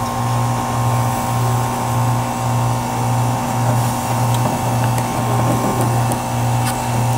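Steady low machine hum that throbs about twice a second, with a few faint clicks over it.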